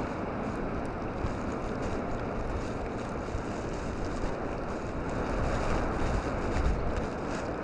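Strong blizzard wind blowing steadily, with wind buffeting the microphone as a low rumble.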